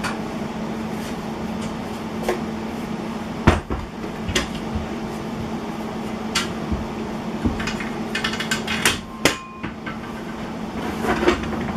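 Scattered knocks and clatters of a glued-up wooden panel and metal clamps being handled and set down, over a steady hum.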